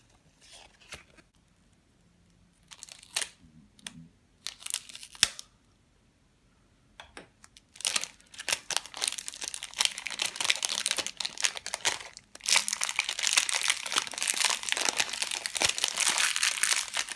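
Packaging being crinkled and torn open to unwrap a 3x3 mirror puzzle cube: a few short scattered rustles, then continuous crinkling and rustling from about eight seconds in.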